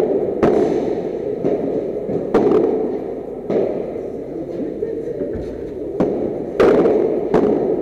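Padel rally: the ball struck by padel rackets and bouncing off the court and walls, about six sharp hits at uneven intervals, the loudest about two-thirds through and followed by a brief ring. Under them runs a steady echoing hum of the indoor hall.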